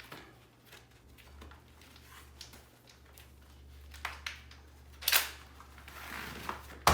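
Bicycle inner tube being pulled out from between the tire and rim by hand: quiet rubbery rustling and handling with a few short clicks, a brief scrape about five seconds in, and a sharp click at the very end.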